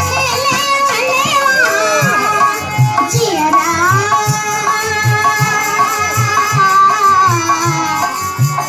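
Kajri folk music: regular hand-drum beats under a pitched melody, with one long held note from about three seconds in.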